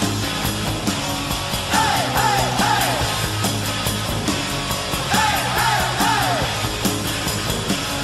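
Rock song with singing. A phrase of falling, sliding notes repeats about every three and a half seconds over a steady low band.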